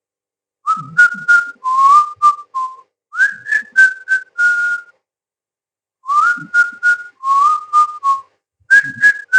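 A person whistling a short tune in clear notes. The tune comes in three phrases of four or five notes, some sliding up at the start, with short pauses between them. A fourth phrase begins near the end.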